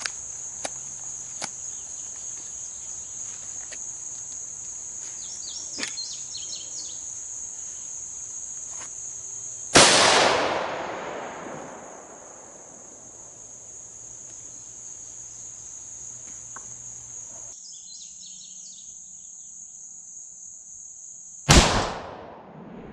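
Two shots from a Remington 783 bolt-action rifle in .243 Winchester, one about ten seconds in and one near the end. Each is a sharp crack followed by a long fading echo. A steady high insect buzz runs underneath.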